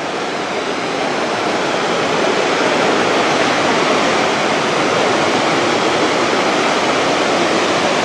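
Steady rushing of Låtefossen, a large waterfall dropping about 165 m, as a dense even noise that swells a little over the first few seconds.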